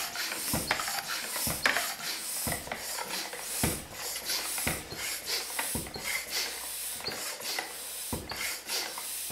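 Floor pump being worked to inflate a bicycle tyre, about one stroke a second, each stroke a short rush of air.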